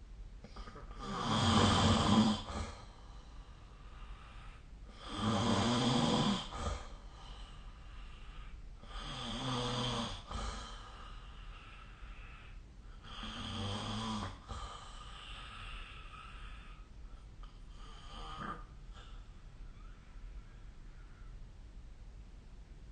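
A sleeping person snoring: four snores about four seconds apart, each a little fainter than the one before, then a weaker breath about eighteen seconds in.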